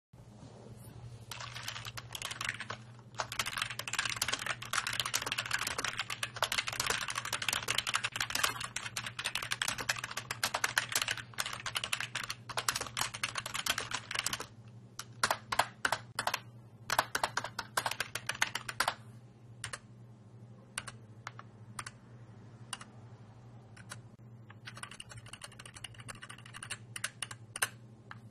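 Aura DZI keyboard being typed on: a fast, dense run of keystrokes for about thirteen seconds, then slower, separate key presses with gaps between them, and another quick flurry near the end. A steady low hum sits underneath.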